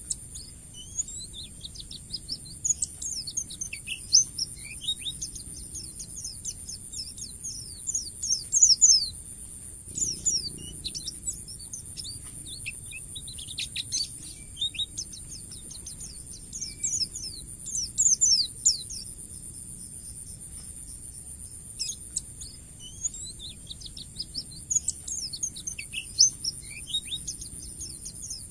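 White-eye (pleci) singing: bursts of rapid, high, down-slurred chirps coming in bouts every few seconds. A steady high-pitched hiss runs underneath.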